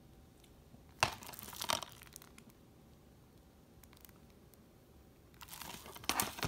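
Plastic shrink-wrap on a DVD case crinkling as the case is handled and turned over, in short bursts about a second in and again near the end as it is set down.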